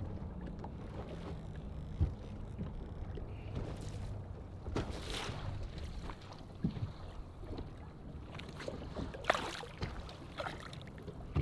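Small waves lapping against a boat hull, with wind buffeting the microphone. A sharp knock comes about two seconds in, and short splashes follow, the loudest about nine seconds in.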